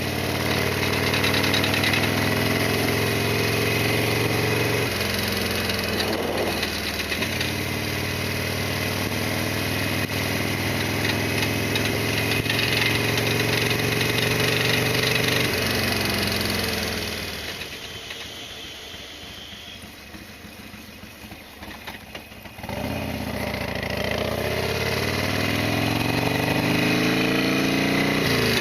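Harley-Davidson Sportster XL1200R's 1200 cc V-twin engine running under way, its revs climbing and stepping with gear changes. About two-thirds through it falls much quieter for a few seconds as the throttle is closed, then picks up again sharply.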